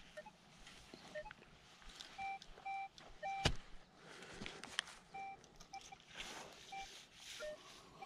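Metal detector sounding short, single-pitch beeps over a target, in uneven groups as it passes over the hole. About three and a half seconds in there is a sharp knock, with a smaller click a little later and faint scraping of dirt.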